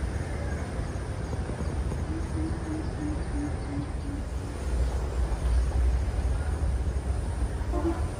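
Outdoor wind rumbling on the microphone, stronger from about halfway through. A bird calls a run of about six short, low hooting notes in the middle.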